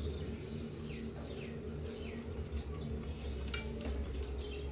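A small bird chirping over and over, short falling calls about every half second, over a steady low hum. A single sharp click about three and a half seconds in.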